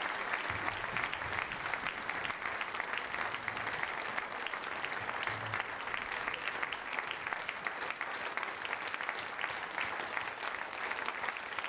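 Concert audience applauding steadily, a dense patter of many hands clapping after a brass band piece.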